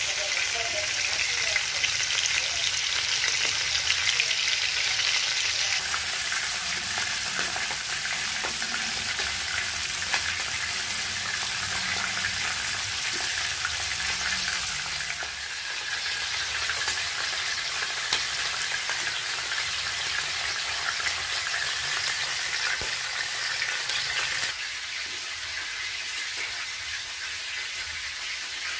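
Whole mackerel shallow-frying in hot oil in a pan: a dense sizzle with a scatter of small pops. About three quarters of the way through, the level drops a step to a quieter, steadier hiss.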